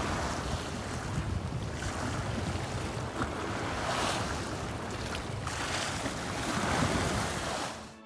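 Sea waves surging in and breaking into foam, in swells about every two seconds, with wind rumbling on the microphone.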